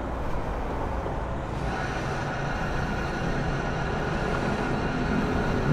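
Steady rush of wind and road noise on a moving motorcycle, with no strong engine note above it.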